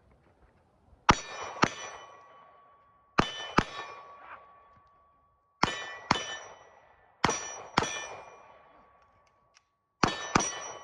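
Pistol fired in five quick pairs, the two shots of each pair about half a second apart, with a steel target ringing on after each pair of hits.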